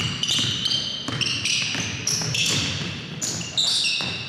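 Basketball sneakers squeaking on a hardwood court, many short high squeaks overlapping one another, mixed with a basketball bouncing on the floor.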